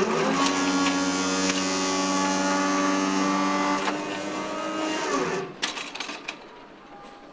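Level crossing barrier mechanism's motor whining steadily as the barriers lower. It winds up at the start, winds down about five seconds in, and a few sharp clicks follow as it stops.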